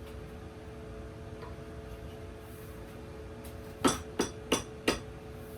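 Four quick hammer blows, about three a second, a little past halfway through, as the axe head is hung on its handle.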